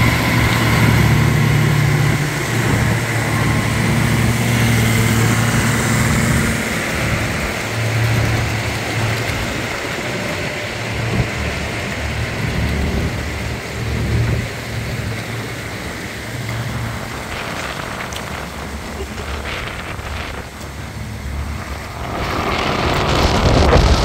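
Diesel engines of several farm tractors running under load as they tow a lorry and low-loader out of deep mud, a low steady engine hum that wavers and grows weaker in the second half. Wind buffets the microphone, most strongly near the end.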